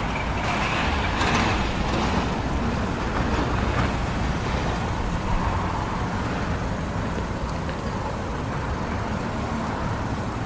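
Steady low rumble of motor vehicle noise, with a brief swell of hiss about a second in.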